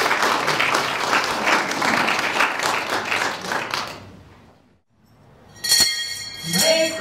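Audience applauding, dying away about four seconds in. A single sharp knock follows near the end.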